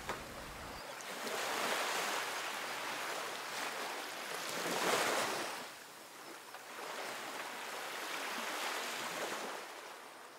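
Surf washing on a shore, swelling and falling back every three to four seconds, fading out near the end.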